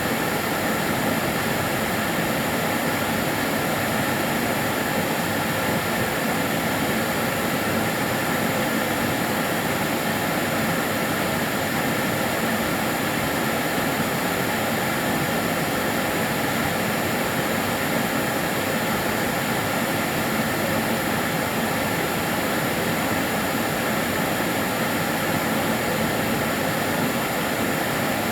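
Kärcher DS 6 Premium water-filter vacuum cleaner running steadily: an even, unbroken whoosh of its motor and airflow, with faint steady high whines on top.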